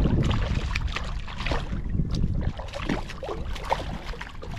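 Water and wind noise around a small fishing boat, with scattered short clicks and splashes as a small striped bass is brought alongside.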